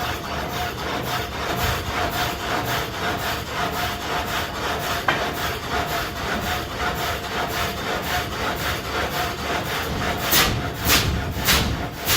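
Water-powered muley saw, a vertical reciprocating blade, running in even rhythmic strokes over a thin steady whine. About ten seconds in, louder rasping strokes start, about two a second, as the blade begins cutting into the log and the stroke slows.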